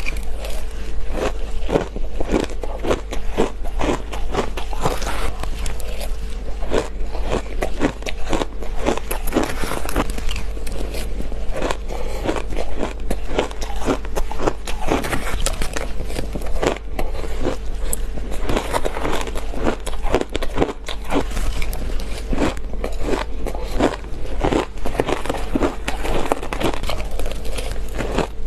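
Ice being bitten and crunched between the teeth, one sharp crunch after another in quick succession, over a steady low hum.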